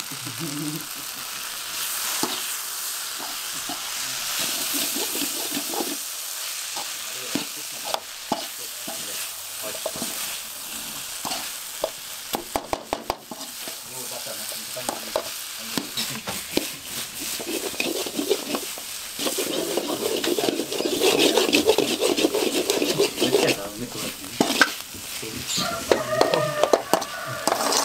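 Egg 65 pieces sizzling in a metal kadai while a perforated metal ladle stirs and tosses them, scraping and clicking against the pan. The stirring grows louder and busier in the last third.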